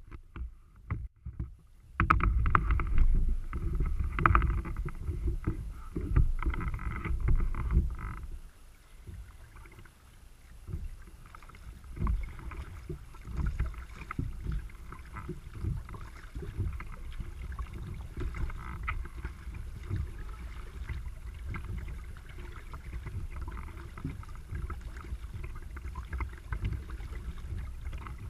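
Kayak paddle strokes: a double-bladed paddle dipping and pulling through river water in an uneven run of splashes and drips, with water lapping along the hull. For the first several seconds a louder low rumble sits under the splashing.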